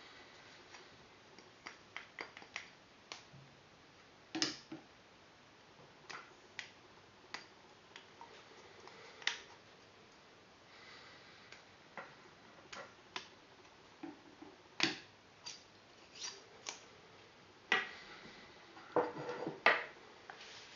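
Irregular small clicks and knocks of hard parts being handled, with a louder cluster of knocks near the end.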